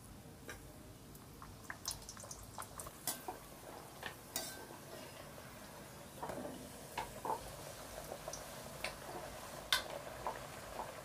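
A stuffed green-pea puri frying gently with a faint sizzle, in oil that is not yet hot enough. A perforated steel slotted spoon clicks and scrapes against the kadai many times, at irregular moments.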